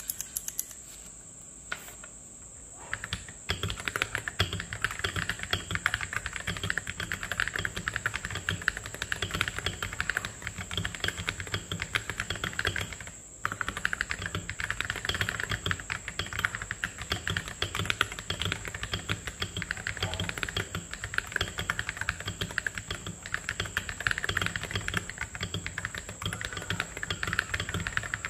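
Rapid typing on a KBD67 Lite R2 mechanical keyboard with stock Glorious Panda tactile switches and MT3 keycaps: a dense run of keystroke clacks starting about three seconds in, with a brief pause about halfway through.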